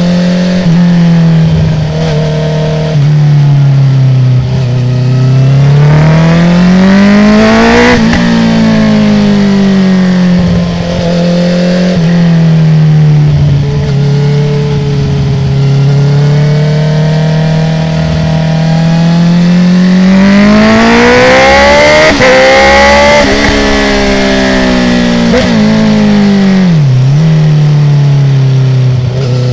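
2019 Honda CB650R's inline-four engine with an Akrapovic full titanium exhaust, its baffle removed, pulling hard and easing off through a run of bends. The revs climb twice, high at about eight seconds and again at about twenty-two, and fall away in between. There is a quick step down in pitch about three seconds in and a brief dip near the end.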